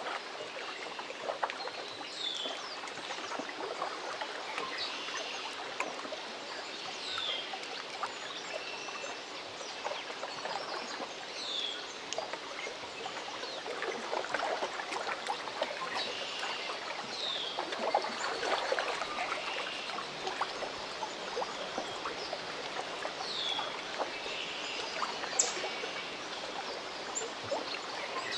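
Lake water lapping and trickling at the shore in a steady patter of small splashes, with a short high chirp repeating about every five seconds.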